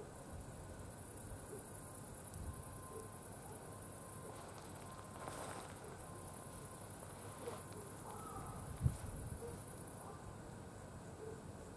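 Quiet rural background with insects stridulating in the grass: a steady high-pitched buzz that stops about ten seconds in. A soft low thump about nine seconds in.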